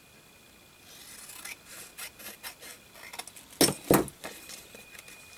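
Paper rustling and rubbing as journal pages and cut-outs are handled on a desk, starting about a second in, with two sharp taps close together about two-thirds through.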